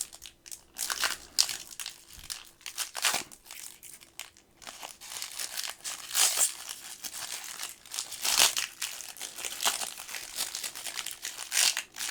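Trading card pack wrapper crinkling and crackling in irregular spurts as it is handled and torn open.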